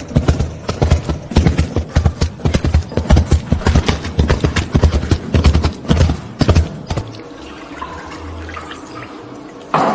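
A dense, irregular run of sharp knocks and clicks for about seven seconds, then a much quieter stretch.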